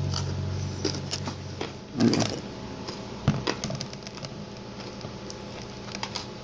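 Close-up chewing of a mouthful of salad with croutons and sesame sticks: scattered soft crunches and wet mouth clicks, one louder about two seconds in. A low steady hum underneath cuts out about two seconds in.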